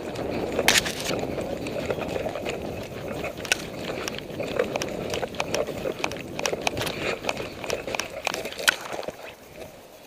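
Footsteps on a forest path and clothing and gear rustling against a body-worn camera while its wearer moves quickly. Sharp clicks and knocks are scattered through it, and the noise drops off about nine seconds in.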